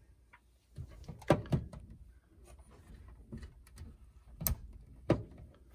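RJ45 plugs on Ethernet patch cables being handled and pushed into a network switch's ports: several short, sharp plastic clicks and knocks, the loudest about a second and a half in and two more near the end.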